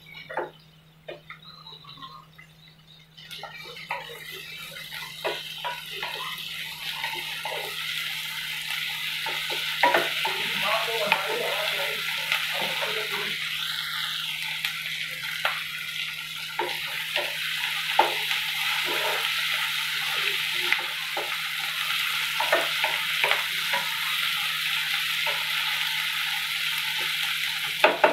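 Onions, tomato and green chillies frying in mustard oil in a pan, a steady sizzle that sets in a few seconds in, while a wooden spatula stirs them with frequent knocks and scrapes against the pan.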